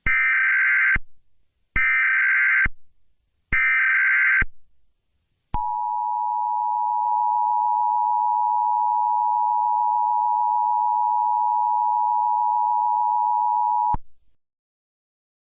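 Emergency Alert System tones for a mock tornado warning: three short bursts of SAME header data, each about a second long, then the two-tone attention signal held steady for about eight seconds before it cuts off.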